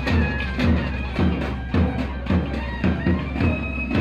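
Nadhaswaram playing a held, reedy melody over a drum beating steadily about twice a second: temple procession music.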